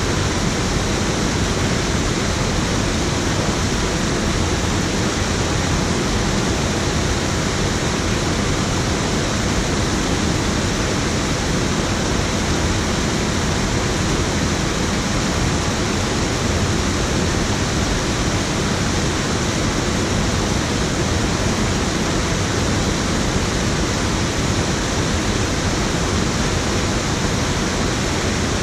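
Water pouring over a low weir into a river pool: a steady, even rush.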